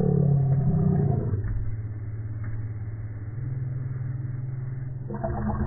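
A cartoon baby's burp, slowed down and pitched far down into a long, low drone. Its pitch falls over the first second or so, then holds steady and low, stepping up slightly partway through. A higher-pitched burp or voice starts near the end.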